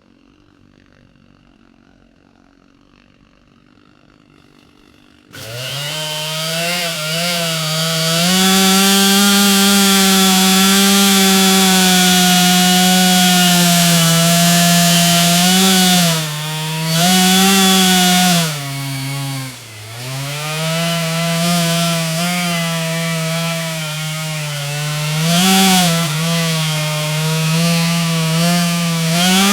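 Petrol chainsaw comes in suddenly about five seconds in after a quiet start, quickly climbs to high revs and runs there. Its engine pitch sags and recovers several times, dipping deepest a little past the middle.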